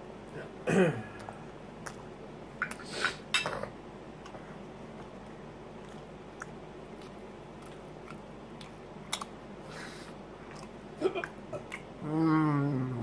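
A man eating bacon: chewing and lip smacking with scattered light clicks of a fork on a plate. A short falling 'mmm' of enjoyment about a second in, and a longer, louder hummed 'mmm' sliding down in pitch near the end.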